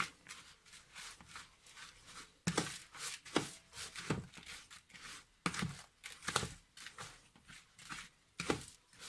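Spoon stirring a moist soft food of grated carrot, apple and egg food in a bowl: irregular scraping strokes, some louder than others.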